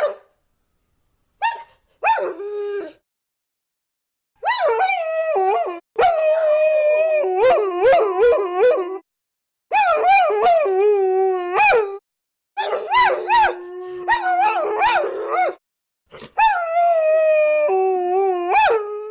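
Several dogs howling together, long wavering howls at different pitches overlapping one another. They come in phrases of a few seconds that start and stop suddenly, with short silent gaps between them.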